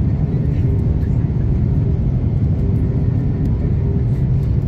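Cabin noise inside an Airbus A330-200 flying low on approach: a steady low rumble of the engines and rushing air, with a faint even hum above it.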